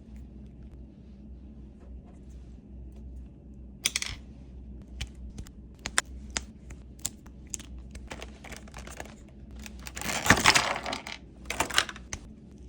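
Small plastic clicks and rustling as a plastic figure and its parts are handled and fitted together, with scattered sharp clicks and a longer rustle about ten seconds in.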